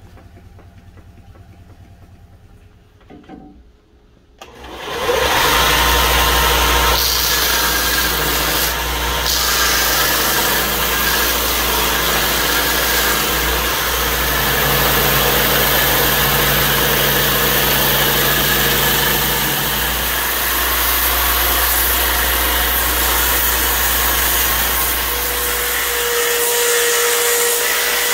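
An electric power tool starts about four and a half seconds in, after a faint hum, and runs with a loud, steady whir and low rumble. Near the end the sound changes as a wooden knife handle is ground against a spinning sanding disc.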